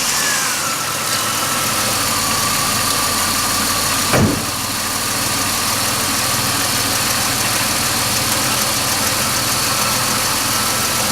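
2005 Chevy Impala's 3.4-litre V6 idling steadily, with a high whine that drops in pitch over the first second and then holds. A single sharp knock about four seconds in.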